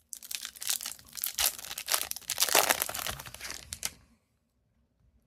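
A hockey card pack's wrapper being torn open and crinkled: a dense run of crackling and tearing for about four seconds, then it stops.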